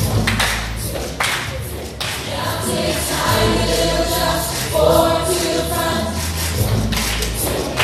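Young voices singing an upbeat worship song together into microphones over a live band, with bass notes and a drum beat, amplified through a PA in a reverberant hall.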